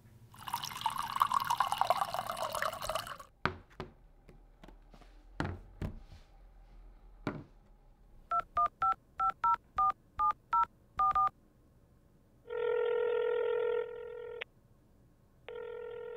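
A smartphone being dialled: about eleven quick touch-tone beeps, then the line ringing in two long pulses. Before the dialling there is a short hiss and a few soft knocks.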